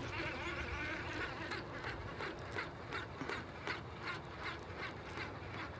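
A duck quacking in a steady series, about three quacks a second.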